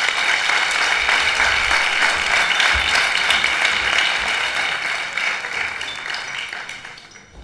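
Crowd applauding: many people clapping together in a steady, dense patter that dies away near the end.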